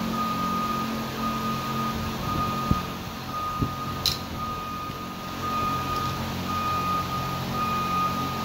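A steady motor hum with a thin high-pitched whine running through it, and three sharp metallic clicks in the first half.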